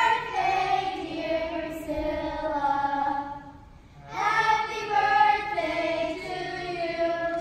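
Children's voices singing two phrases with long held notes, with a short break about three seconds in.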